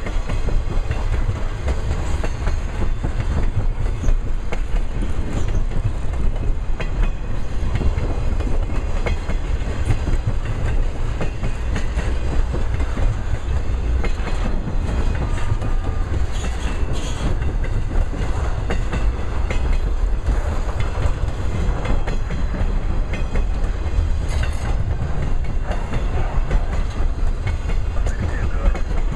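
Trailer-carrying flatcars of an intermodal freight train rolling past: a steady rumble of steel wheels on rail with repeated clicks.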